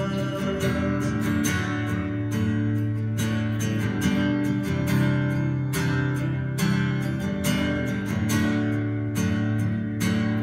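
Acoustic guitar strummed in a steady rhythm through an instrumental passage of a worship song, with fuller backing music underneath.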